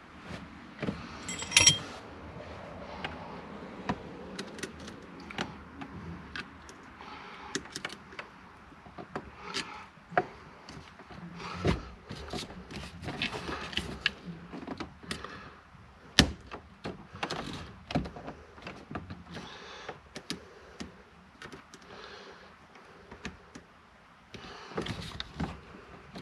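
Irregular clicks and light knocks of parts and hand tools being handled while a car's steering column is put back together, with a louder ringing clink about a second and a half in.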